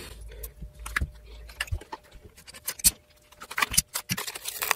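Metal bar clamps and spring clamps being unscrewed and taken off a glued guitar fingerboard after the glue has dried, with scattered clicks, clinks and knocks of metal clamp parts and wooden cauls.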